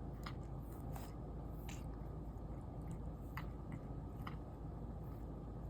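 Siberian cat chewing her food: a handful of faint, scattered crunches and clicks over a low steady hum.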